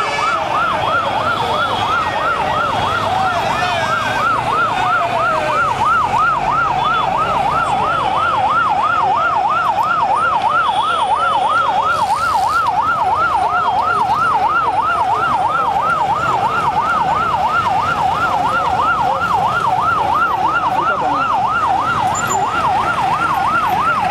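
Police vehicle siren sounding continuously in a fast yelp, its pitch rising and falling a few times a second, over the noise of a large crowd.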